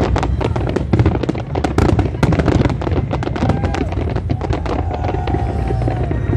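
Aerial fireworks bursting and crackling in rapid succession over a steady low rumble. The cracks are densest in the first half and thin out toward the end.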